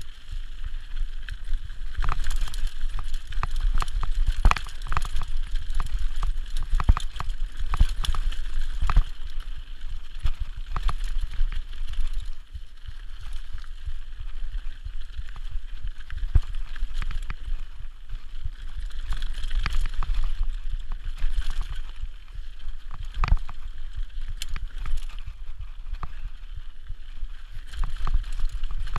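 Mountain bike descending a dirt singletrack at speed: a steady rumble of wind buffeting the microphone, broken by frequent sharp rattles and knocks as the bike goes over bumps.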